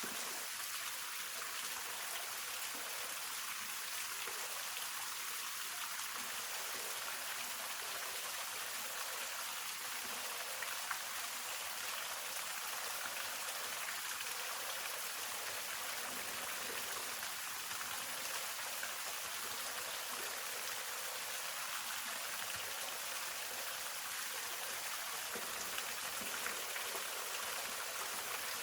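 Hongryu Falls' water falling and splashing in a steady, unbroken hiss, mostly high-pitched with little deep rumble.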